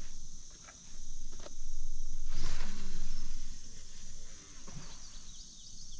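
A fishing rod being cast: a swish about two and a half seconds in as the line runs out. Crickets chirp steadily throughout.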